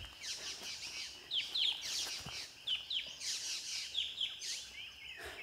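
A bird calling: short down-slurred chirps, mostly in pairs, repeating roughly every second and a bit, over a faint steady high hum.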